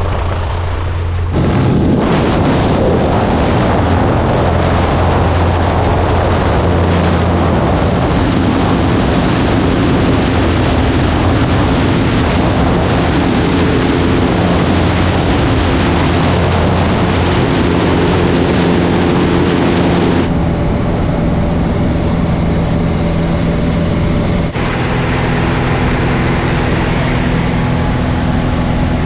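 Light aircraft engine droning, then about a second in a sudden loud rush of wind over the camera microphone as the skydiver goes out into the airstream. The wind noise continues, with abrupt shifts in tone near the end.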